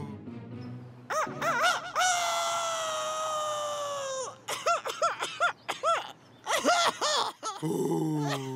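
Cartoon rooster crowing: a few short rising-and-falling notes, then one long note held for about two seconds that slowly slides down, followed by a run of short up-and-down notes. A lower, falling voice comes in near the end.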